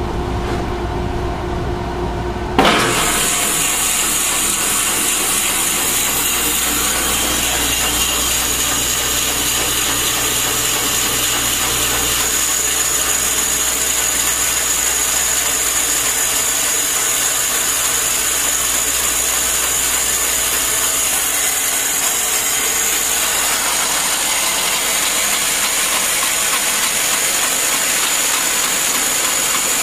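Bandsaw running with a wide resaw blade; about two and a half seconds in, the blade bites into a walnut board and a steady cutting noise takes over as the board is resawn.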